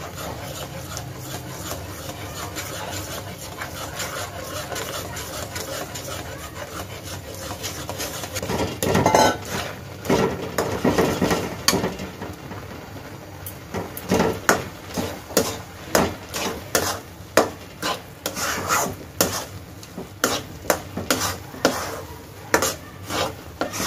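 Metal spatula stirring semolina into hot milk in a karahi: soft stirring at first, then from about nine seconds in a run of scrapes against the pan, about two a second, as the mixture thickens into a stiff dough.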